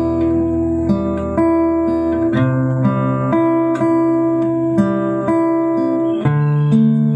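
Acoustic guitar music, with strummed and plucked chords changing about once a second.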